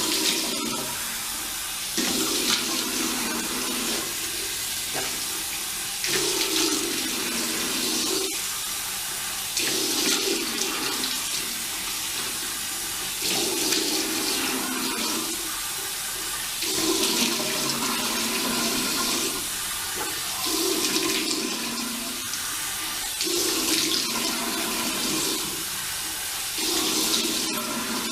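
Water running from a tap into a sink while the face is rinsed, with about eight splashing surges every three to four seconds as cupped handfuls of water are brought to the face.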